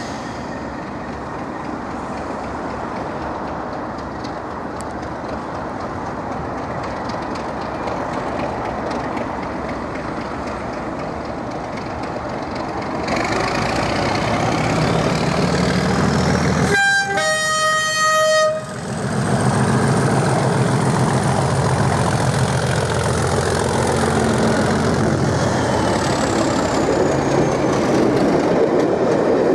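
DRS Class 37 diesel locomotive with an English Electric V12 engine, ticking over, then opening up about thirteen seconds in. Around the middle it sounds its two-tone horn briefly, a higher note then a lower one. Its engine then runs hard with a deep throb as it pulls out past the platform.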